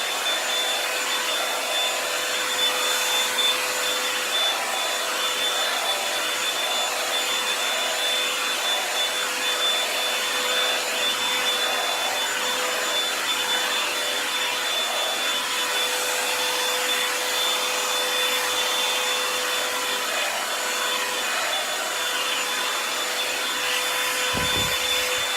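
Revlon One-Step hair dryer and styler running on its high setting, a steady rush of air with a fixed motor whine, swelling softly about once a second as it is worked through the hair.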